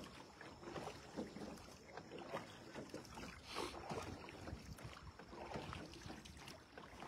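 Faint water sounds of a small rowed tour boat gliding on a calm river: soft, irregular splashes and lapping at the hull.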